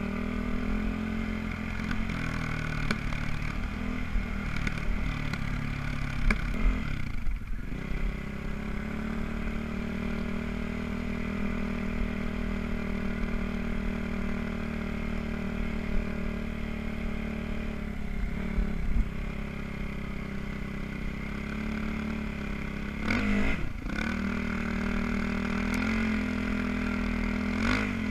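Enduro motorcycle engine running as the bike is ridden over sand, the revs dropping and climbing back a few times as the throttle is eased and opened.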